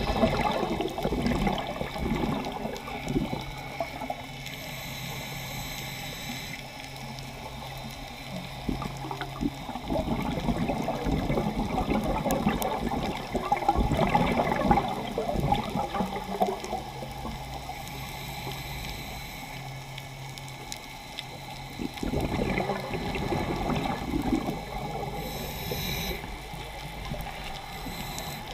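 Underwater scuba breathing: regulator exhaust bubbles gurgling up past the camera housing in several bursts a few seconds long, each a slow exhale, with quieter stretches between them while the diver inhales.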